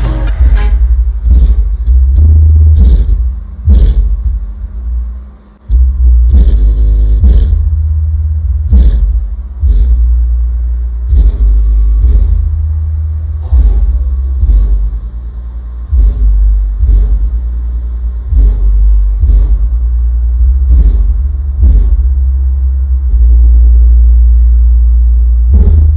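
12-inch subwoofer driven by a 2SC5200/2SA1943 transistor amplifier board, playing loud bass-heavy music with a hard beat about once a second; the deep bass dominates and rumbles.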